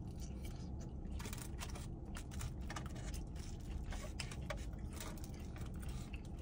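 Someone chewing buffalo chicken mac fries with the mouth close to the microphone: scattered small clicks and crunches, over a low steady hum.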